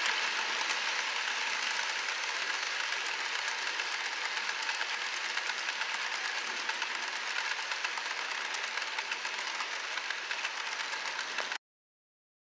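HO scale model freight cars rolling along the track, their metal wheels making a steady rattling hiss of fine clicks that grows slightly fainter and cuts off suddenly near the end.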